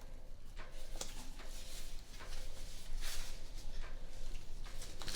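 Packaging being pulled off a new handbag: irregular rustling and crinkling with a few light clicks.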